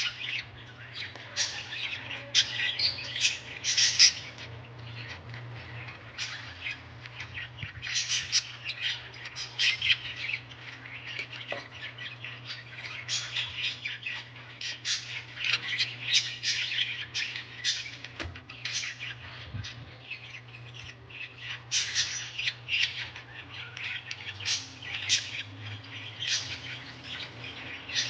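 Small birds chirping and squawking in quick repeated bursts, over a steady low hum.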